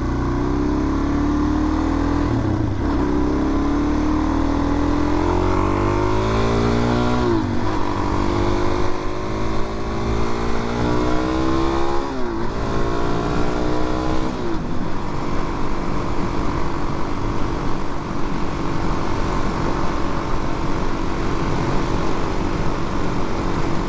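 Suzuki DR-Z400's carbureted single-cylinder engine pulling hard through the gears: its pitch climbs, then drops sharply at each upshift, three times in the first half. After that it holds a steady cruising note under the rush of wind noise.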